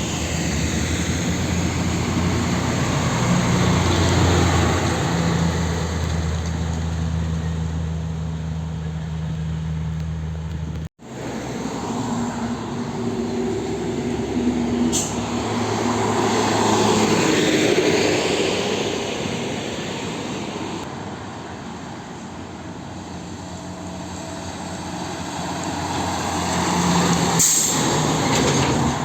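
Heavy diesel trucks running past on a road. A steady engine note for the first stretch, then a sudden break about eleven seconds in, then the sound swelling and fading as trucks go by, with two short sharp hisses or clicks.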